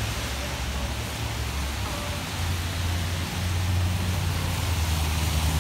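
Steady rain hiss on a wet street, with a car driving by on the wet road; its low engine and tyre rumble grows louder from about two seconds in.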